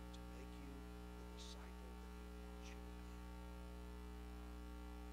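Steady electrical mains hum with many overtones in the sound system, under an otherwise nearly silent room; two faint short hisses about one and a half and nearly three seconds in.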